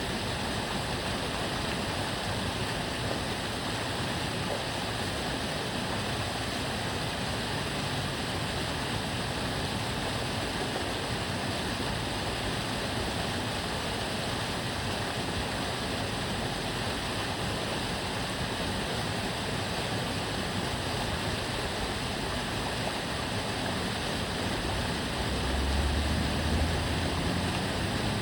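Water of a small canal stream flowing in a steady rush. Near the end a low rumble of passing traffic swells in underneath.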